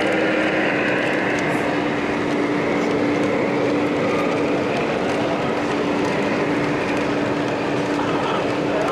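Large-scale model diesel locomotive and its log wagons running past along the track, a steady rolling rumble with a constant low hum.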